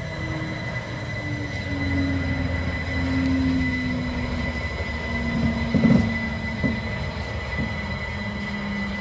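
DB Cargo EffiShunter diesel shunting locomotive rolling slowly past, its engine note falling gradually under a steady high whine. A sharp clank about six seconds in is followed by a couple of lighter knocks from the running gear on the track.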